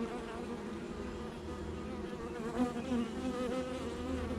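Honey bees buzzing in a steady, wavering hum from an opened hive, the many wingbeats blending into one drone with pitches that drift up and down.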